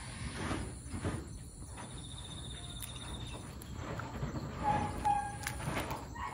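Outdoor ambience with a steady low rumble. A high, pulsed insect trill runs for about a second and a half starting about two seconds in, and two short clear chirps come near five seconds.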